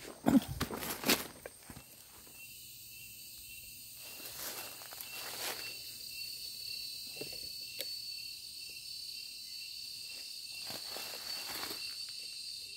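Footsteps in dry leaf litter, loudest in the first second or so, then a few fainter scattered steps, over a steady high-pitched insect chorus.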